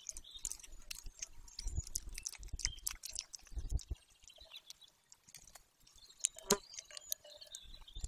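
Golden eaglet tearing at and plucking its prey, a young bird, on the nest. Irregular small clicks and snaps, with a few soft low thumps about two, three and four seconds in and a sharper knock near the end.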